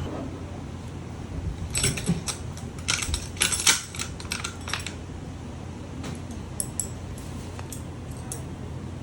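A quick run of light clicks and clinks of small hard objects for about three seconds, then a few scattered ones, over a steady low hum.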